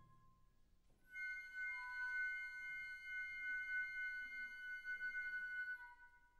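Wind orchestra playing softly near the close of a piece: a high note dies away, then about a second in a quiet high chord enters and is held steady for about five seconds before fading.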